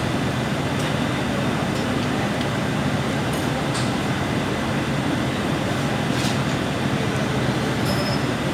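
Steady workshop machinery noise, a low hum and rush, with a few faint clicks scattered through it.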